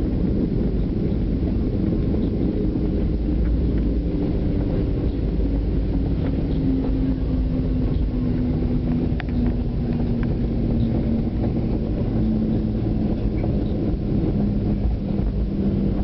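Jet airliner cabin noise during the landing rollout: a steady rumble with a hum that sinks slowly in pitch as the aircraft slows on the runway.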